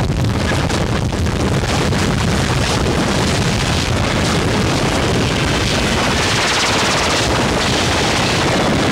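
Loud, dense distorted noise made of rapid rattling pulses, steady in level throughout.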